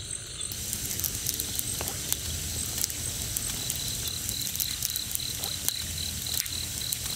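Night jungle insects: a steady high-pitched chorus, joined about halfway through by a regular chirp pulsing three or four times a second, over a hiss scattered with light clicks.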